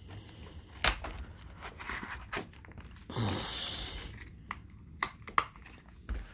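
A folding knife and its black leather sheath being handled: a sharp click about a second in, about a second of leather rubbing and scraping as the sheath flap is folded over, then two quick clicks as the snap is pressed shut, and a soft knock as it is set down.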